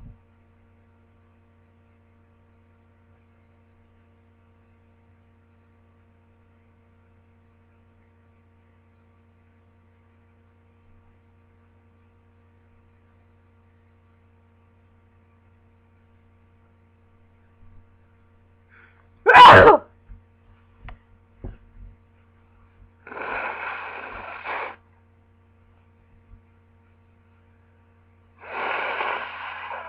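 A single loud sneeze from a person with a head cold, about two-thirds of the way in, over a faint low mains hum. A few small clicks follow, then two longer, steady pitched sounds near the end.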